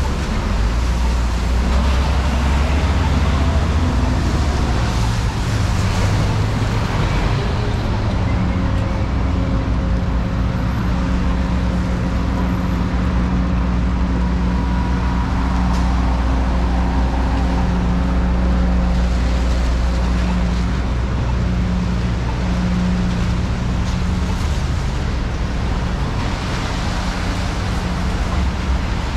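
City street traffic with a vehicle's engine running close by: a steady low hum that fades away about four-fifths of the way through, leaving the general traffic noise.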